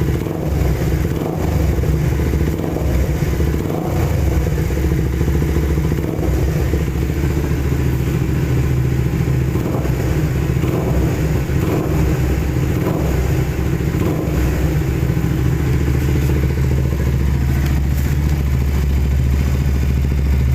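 Suzuki Raider 150 single-cylinder four-stroke engine idling steadily through an aftermarket Redleo exhaust.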